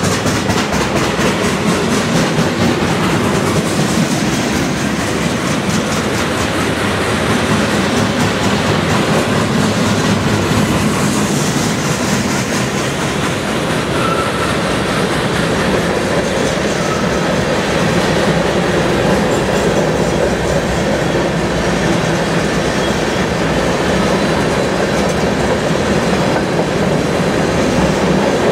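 Freight cars of a long train rolling past at close range: a steady rumble and rattle of steel wheels on the rails, with rhythmic clickety-clack as the wheels cross rail joints. There are a couple of brief faint wheel squeals in the middle.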